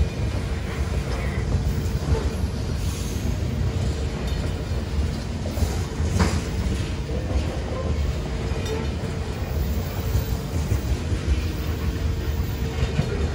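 Freight train of covered hopper cars rolling past, a steady low rumble of steel wheels on the rails. There is one sharp clank about six seconds in.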